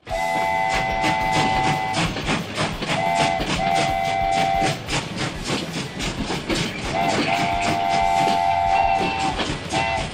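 Train whistle sounding a three-note chord in repeated blasts: a long one at the start, two shorter ones a few seconds in, and another long one with short toots near the end. Under it, a steady rapid clickety-clack of train wheels on the rails.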